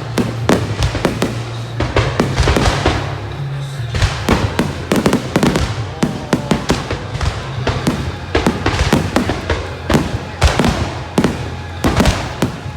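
Fireworks display in a rapid barrage: aerial shell bursts going off in quick succession, several sharp bangs a second with no break.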